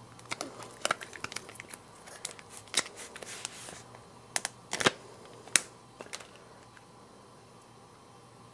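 Clear plastic protective sleeve crinkling and crackling as it is slid off a new portable media player, with several sharp plastic clicks; the handling stops about six seconds in, leaving quiet room tone.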